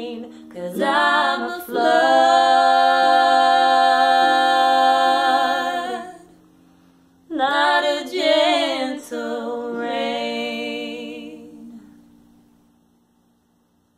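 A woman singing slow, long-held notes in two phrases with a short pause between them; low notes ring on under the voice and fade out after the singing stops.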